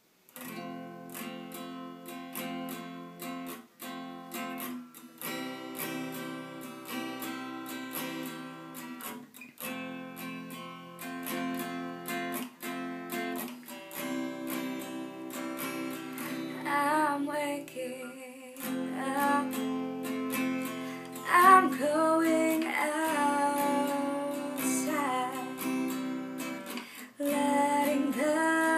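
Steel-string acoustic guitar strummed in a steady rhythm, with a woman's voice singing over it from about halfway through, the whole getting louder.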